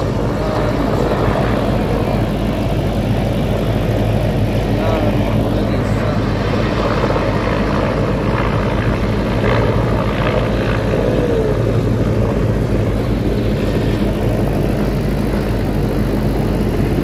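Several military helicopters' rotors and turbine engines running as they lift off and fly past low overhead, a steady, fast chopping beat under a constant engine roar.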